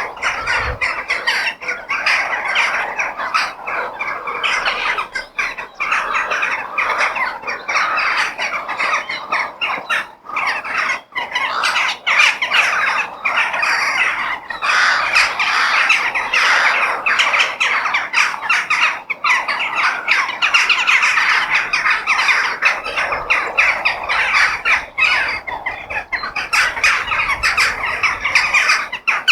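A flock of crows cawing at once: a dense, unbroken chorus of harsh, overlapping calls.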